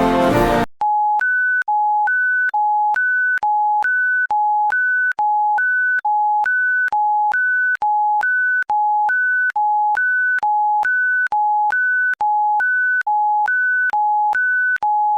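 Orchestral brass music cuts off under a second in. An electronic two-tone emergency alert signal follows: a lower and a higher beep alternating without pause, about two beeps a second.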